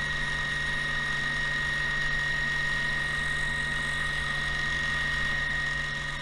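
Juki TL-2010Q sewing machine motor running at a steady speed, spinning the bobbin winder to fill a bobbin, with a steady high-pitched whine.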